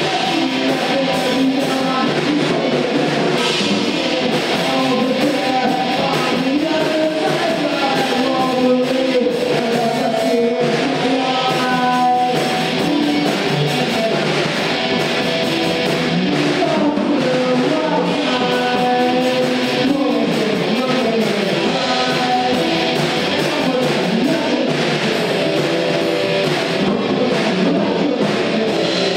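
Rock song led by electric guitar, with a moving melodic line over a steady band sound.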